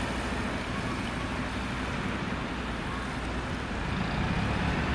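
Volgabus-4298.G4 LNG city buses moving slowly with a steady low engine rumble, growing louder near the end as one bus draws closer.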